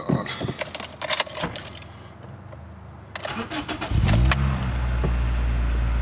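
Keys jangling in the ignition, then the Toyota Corolla XRS's 2ZZ-GE 1.8-litre four-cylinder cranks briefly and starts about four seconds in, flaring up in revs before settling into a steady idle. The engine has just had new spark plugs fitted for a cylinder-one misfire.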